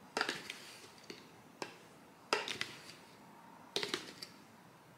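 Light taps and clicks of a plastic scoop and protein-powder tub against a plastic mixing bowl as whey powder is tipped in onto oats, about half a dozen short knocks spread out with pauses between.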